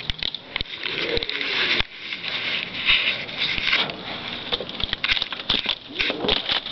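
Close rustling and crackling with many irregular clicks, the sort of noise fabric or handling makes right at the microphone.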